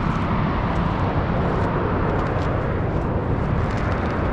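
Mount Bromo's active volcanic crater rumbling: a steady, deep roar from the vent.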